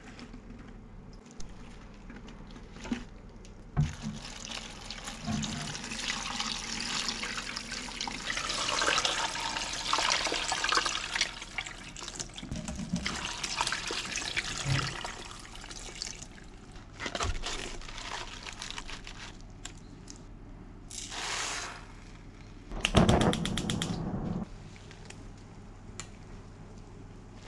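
Water running into a large stockpot packed with chicken, napa cabbage and kombu: a splashing rush that builds and then eases off after several seconds. A few knocks come before it, and near the end there is a short, louder rattling burst.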